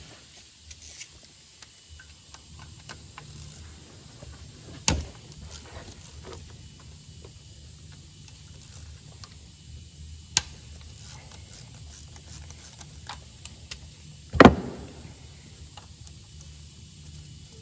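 A 3/8-drive ratchet and T45 Torx socket working on the bolts of the injector hold-down clamp of a 1.5 dCi K9K diesel engine: small irregular clicks and ticks, with three sharp knocks about five, ten and fourteen seconds in, the last the loudest.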